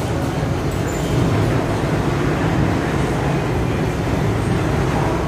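A freight train's covered hopper car rolling slowly past, with a steady low rumble of wheels on rails.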